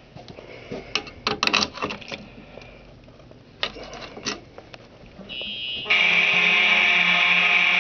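Scattered clicks and knocks, then about six seconds in a Simplex fire alarm system goes into alarm. A loud, steady alarm tone starts suddenly and holds on.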